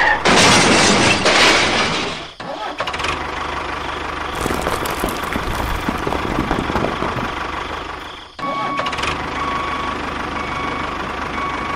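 A motor running steadily, broken off abruptly twice, about two and a half and eight and a half seconds in.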